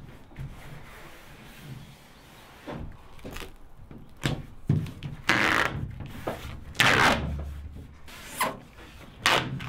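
Masking tape being pulled off the roll in several short rasping rips and pressed and rubbed down onto a fibreglass canoe hull.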